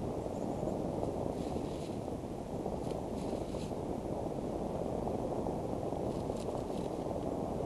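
Steady low rumble of wind buffeting an outdoor nest-camera microphone, with a few faint, brief high chirps from a bird in the background.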